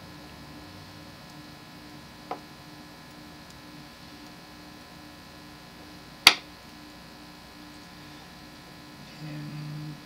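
Steady electrical hum with a faint metal click about two seconds in and a much sharper one about six seconds in, as tweezers lay a lock pin into a pin tray. The hum grows louder near the end.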